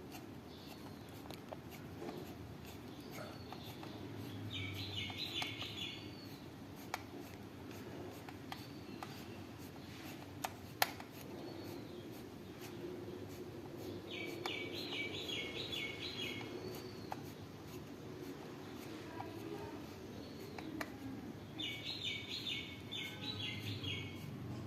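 A bird calling three times, each call a quick run of six or seven chirps, about nine seconds apart, over a steady low background noise. A few single sharp clicks come in between, about seven and eleven seconds in.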